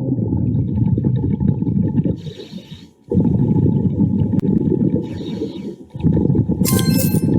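Underwater breathing of a diver on a regulator: long rumbling bursts of exhaled bubbles, each about two to three seconds, broken by short hissing inhalations. A brief, sharp, high-pitched squeak comes near the end.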